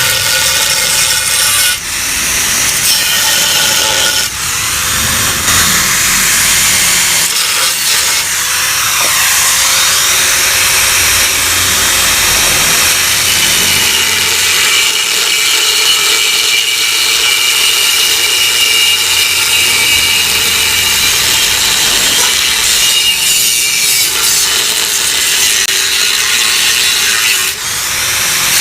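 Angle grinder cutting into the sheet steel of a Yamaha RX-King exhaust: a loud, continuous grinding with a high whine, easing off briefly about two and four seconds in and again near the end.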